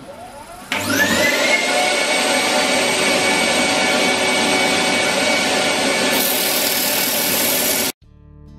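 Wood lathe motor spinning up with a rising whine that levels off, then running steadily while 80-grit sandpaper rubs against the spinning ironbark hollow form. The sound cuts off suddenly near the end.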